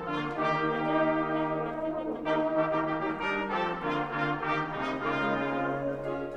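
Middle school honors concert band playing, brass prominent in sustained chords over held low bass notes.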